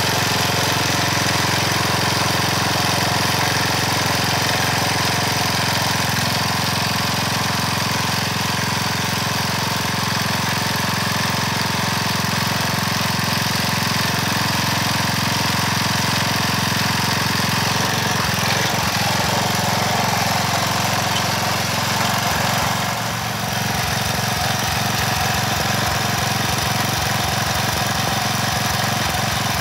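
Small gasoline engine of a front-tine garden tiller running steadily as its tines churn dry soil. The engine note turns uneven in the second half, with a brief dip in loudness.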